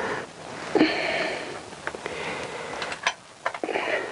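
Honda CBR1000F four-cylinder engine turned over by hand with the new cylinder block fitted and no head on: pistons sliding in the bores, two soft swishes with a few light clicks. It turns over freely.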